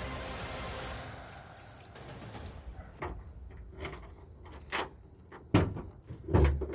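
A key ring jangling and clicking as a key is worked in a new trunk lock on a 1986 Ford Mustang, followed near the end by two heavy thumps from the trunk lid and latch. A steady rushing noise fades out in the first couple of seconds.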